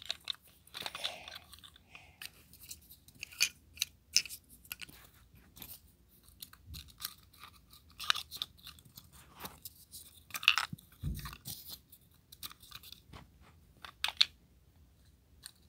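Irregular crackling clicks and rustles with a louder cluster and a low thump about two-thirds of the way through.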